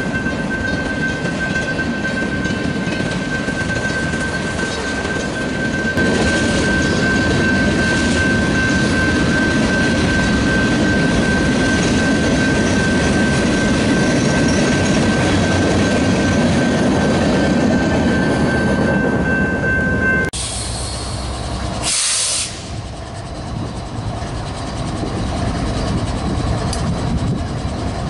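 Freight train cars rolling past on the rails with a steady high-pitched wheel squeal. About twenty seconds in it cuts abruptly to the quieter rumble of a freight train with a BNSF diesel locomotive, and a brief hiss follows a couple of seconds later.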